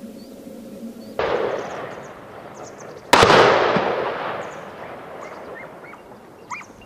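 Two gunshots about two seconds apart, the second louder, each echoing and fading out over a couple of seconds.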